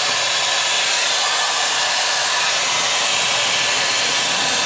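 Dyson Airwrap hair styler running steadily with its larger curling barrel fitted: an even, high rushing of air from its fan.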